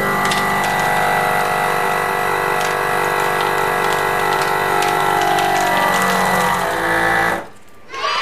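FoodSaver vacuum sealer's pump running steadily, drawing the air out of a pouch of frozen soup. Near the end one note in it slides down in pitch, and then the machine stops abruptly about seven seconds in.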